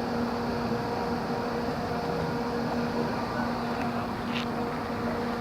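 Steady mechanical hum holding a constant pitch over a bed of noise.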